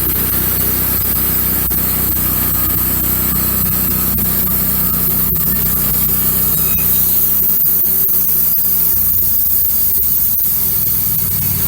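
Wood-Mizer LX150 portable bandsaw sawmill running steadily, sawing boards off an oak log; its tone shifts slightly about seven and a half seconds in.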